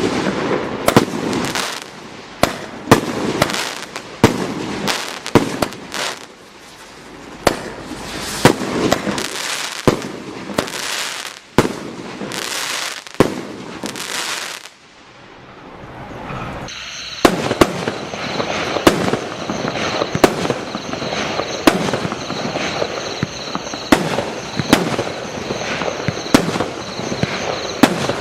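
Primed 'Full House' firework barrage firing shot after shot, sharp bangs in quick succession. They ease off briefly about halfway, then resume with a steady high-pitched whistle under the bangs.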